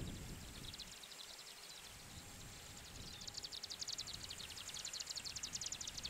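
Marsh Grassbird (Japanese marsh warbler) singing: a rapid, dry, ticking run of notes, about ten or more a second. The run is faint about a second in and grows louder and denser from about three seconds.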